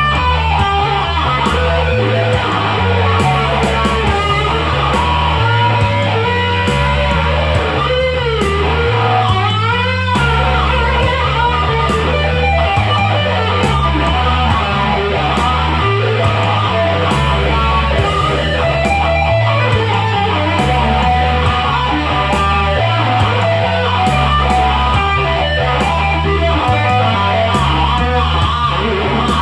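Instrumental rock music: an electric guitar plays a lead line with wide pitch bends and vibrato over a bass line and a steady beat.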